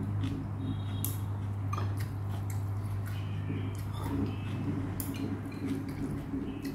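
Eating sounds: chewing with scattered light clicks and taps of wooden chopsticks against a bowl. Under them runs a steady low hum that stops about four seconds in.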